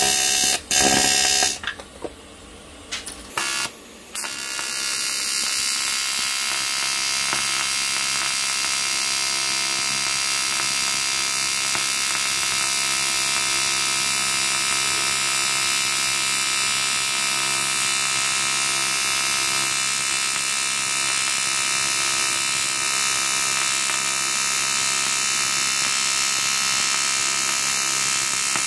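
AC TIG welding arc buzzing steadily as weld is laid on a cracked aluminium crankcase. The arc breaks off about one and a half seconds in, flickers once, and is struck again about four seconds in, then holds steady.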